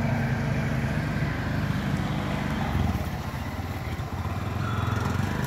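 Motorcycle engine idling steadily with a fast even pulse, dipping slightly in level about three seconds in.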